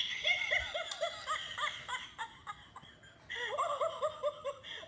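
A child laughing in two bouts of quick, high-pitched giggles, with a pause of about a second in the middle.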